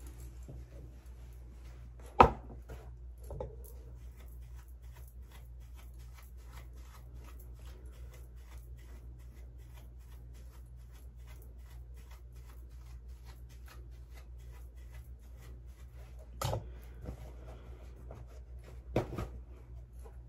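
Steady low room hum, broken by a sharp, loud knock about two seconds in and a few softer thumps later, from objects being handled and set down.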